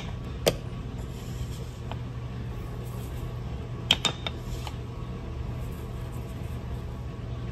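Steady low hum of a running dishwasher, with sharp clicks of glass spice jars being handled: one about half a second in and two close together about four seconds in.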